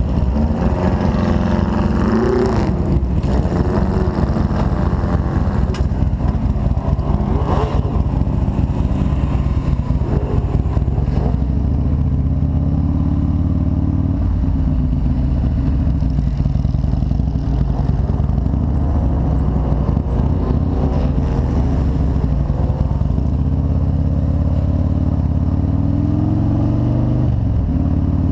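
Motorcycle engine running close to the camera as the bike pulls away and rides at low street speed. Its pitch rises and falls with the throttle and gear changes, and it climbs again near the end.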